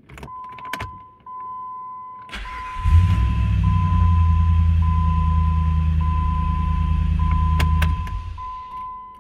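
Jeep Grand Cherokee V8 started with a newly programmed key: the key clicks in the ignition, the starter cranks, and about three seconds in the engine catches. It runs steadily for about five seconds and is then switched off and winds down, which shows the immobilizer has accepted the key. A steady dashboard chime tone with short breaks sounds throughout.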